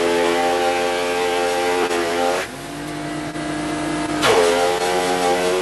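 Electric woodworking machine cutting green oak. The motor's pitch drops and the cutting noise rises twice, as the wood is worked in two passes of about three seconds, with the motor running free in between.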